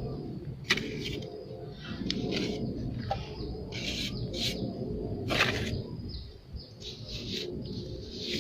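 A plastering trowel scraping in short, irregular strokes over wet cement render on a brick wall, several strokes a second, over a steady low background rumble.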